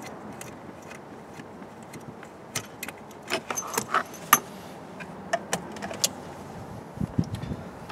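Scattered light metallic clicks and clinks of a car mobile radio being handled: its antenna coax connector unscrewed and the radio body lifted out with its cables. A dull low thump comes near the end.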